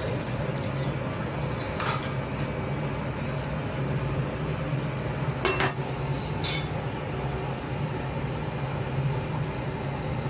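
Steel spatula and knife clinking against a steel teppanyaki griddle as a wagyu steak is turned and worked, a few sharp clinks with the loudest two about a second apart past the middle, over a steady low hum.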